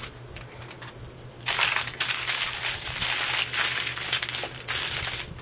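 Small plastic bags of diamond-painting drills crinkling and rustling as hands shuffle and spread them out. The crinkling starts suddenly about a second and a half in and keeps going.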